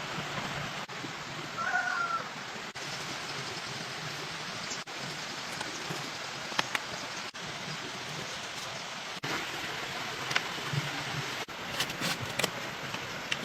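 Steady rushing noise like rain or running water, with a few sharp knocks in the second half and one brief high chirp about a second and a half in.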